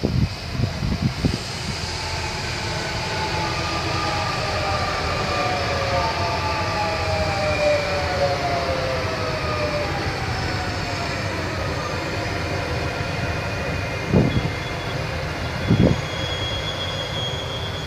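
SNCF Z 23500/Z 24500 double-deck electric multiple unit (TER 2N) passing, over a steady rumble of wheels on track. Its traction motors whine in several tones that slide down in pitch. Later a thin high steady squeal comes in, with a couple of muffled thumps.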